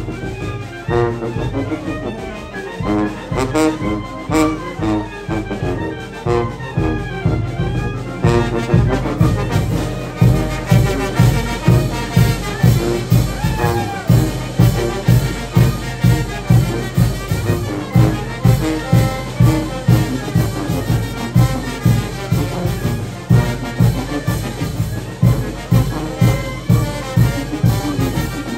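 A village brass band (banda de viento) playing a son or jarabe, with trumpets and trombones carrying the tune. About eight seconds in, a steady, heavy low beat comes in.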